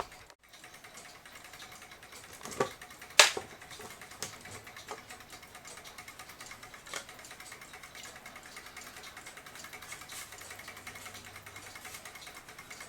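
Scattered clicks and knocks of a screwdriver and small metal parts as screws are taken out of a mantel clock's dial, the loudest knock about three seconds in, with fewer and fainter clicks after.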